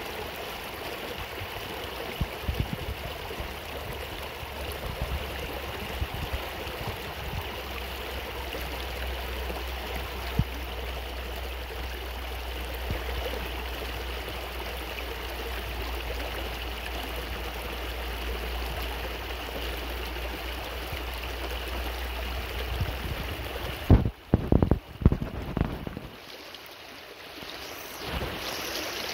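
Shallow rocky stream rushing and splashing over stones and around boulders, a steady water noise with a low rumble under it. Near the end, a few loud thumps break in, and the water sound is briefly dulled before it comes back.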